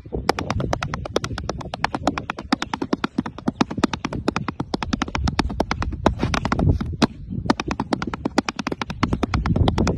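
Tap dancing: hard shoe taps clicking in a fast, continuous rhythm on a board, several taps a second, with duller thuds of the steps underneath.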